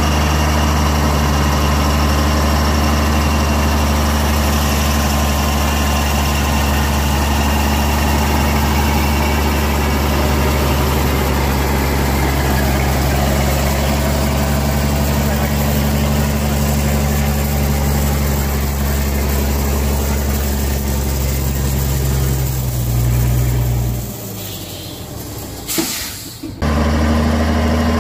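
A heavy vehicle engine idling steadily. Near the end it cuts away for a couple of seconds with a sharp click, then runs again.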